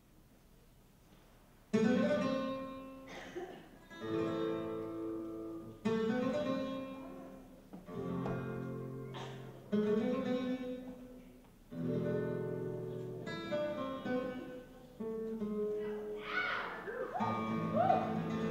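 Acoustic guitar music in a flamenco style: strummed chords struck sharply and left to ring and fade, a new chord about every two seconds, starting a little under two seconds in.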